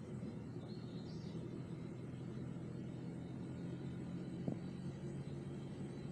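Car driving, with a steady low rumble of engine and road noise. There is a faint high chirp about a second in and a single sharp click about four and a half seconds in.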